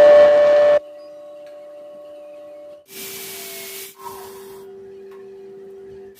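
Small grinder motor running with a steady whine, with bursts of hissing as it grinds into the material about three seconds in and again near the end.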